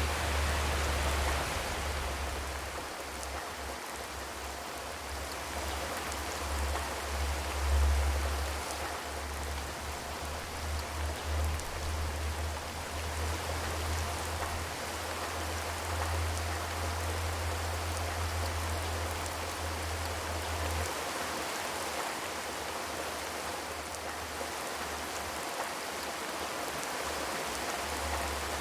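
Steady rain on a zinc roof: an even hiss of many drops. Under it is a deep low rumble that comes and goes, then drops away about two-thirds of the way through.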